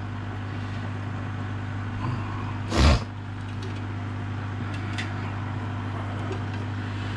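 Steady low electrical hum from the aquarium's equipment, with one short loud thump about three seconds in and a few faint ticks later.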